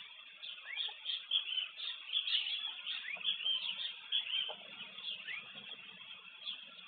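A chorus of many overlapping high chirping calls, with a few short rising whistles, busiest in the middle. A faint low hum comes in about halfway through.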